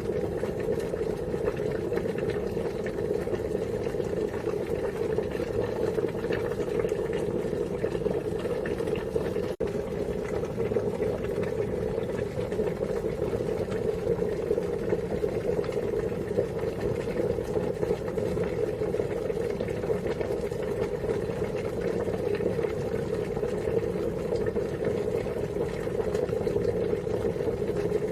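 Water boiling steadily, a continuous dense bubbling with a brief dropout about ten seconds in.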